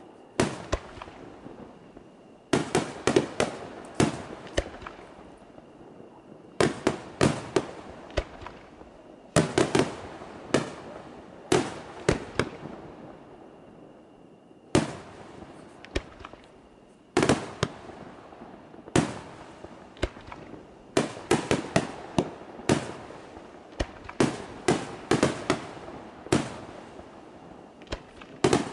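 Aerial firework shells bursting in quick clusters of sharp bangs, several at a time. Each cluster fades out in echo, and there are short lulls of a second or two before the next.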